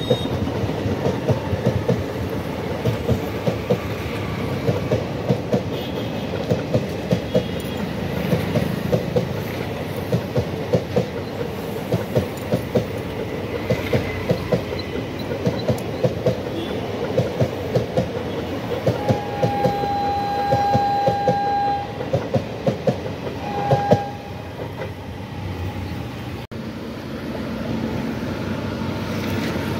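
Passenger train coaches passing at speed, their wheels clattering over rail joints in a steady clickety-clack. About 19 seconds in a train horn sounds one long blast and then a short one, and soon after the clatter drops away to a softer, steady rumble as another train with an electric locomotive approaches.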